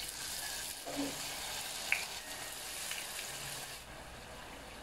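Turon (sugar-coated banana spring rolls) deep-frying in oil in a metal saucepan: a steady sizzle of bubbling oil. A sharp click about two seconds in, and the sizzle softens a little near the end.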